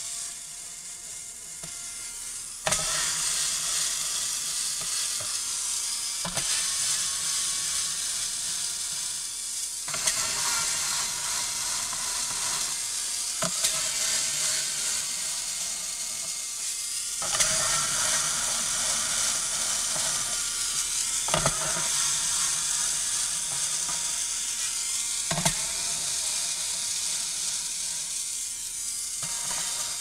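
Small cordless electric screwdriver running as it backs out the Phillips screws of a laptop's bottom cover, a steady whirring that restarts sharply about every four seconds, one screw after another.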